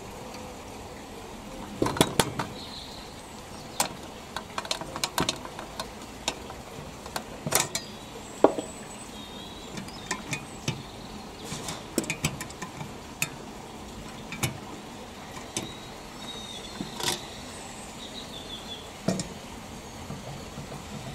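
Scattered small metal clicks, taps and clinks from hands handling a Mamod model steam traction engine: its tinplate canopy being fitted and the spring drive belt on the flywheel worked into place. The clicks come irregularly, now singly, now a few in quick succession, the loudest cluster about two seconds in.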